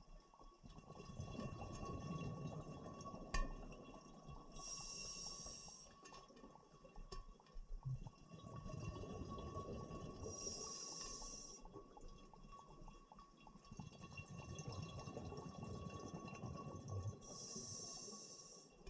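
Scuba diver breathing through a regulator underwater: a short high hiss on each inhale, three times, alternating with longer bubbling rumbles as exhaled air escapes.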